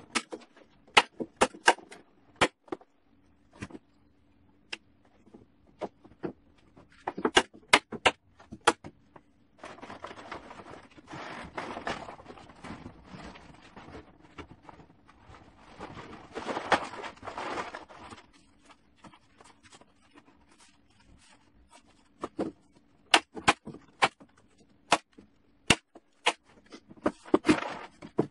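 Manual staple gun snapping staples through plastic tarp into wood, in quick groups of single sharp shots. About ten seconds in and again a few seconds later, the loose tarp rustles loudly as it is handled.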